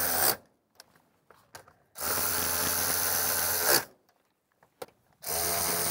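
DeWalt 3/8-inch-drive cordless electric ratchet running in three short bursts with pauses between, driving a snow bar clamp's locking-head bolt down tight until the tool torques out.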